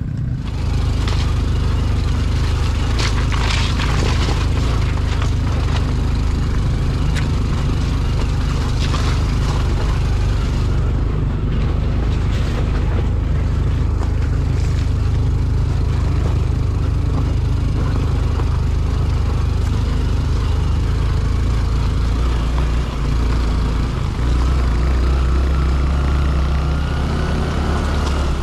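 Small single-cylinder four-stroke trail motorcycle running steadily while being ridden over a rocky trail, with scattered knocks and clatter from stones and the bike's parts, heaviest in the first half.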